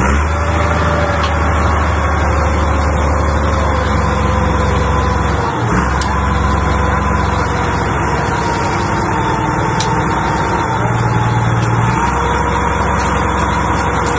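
An engine running steadily, with a low hum and a faint wavering tone above it.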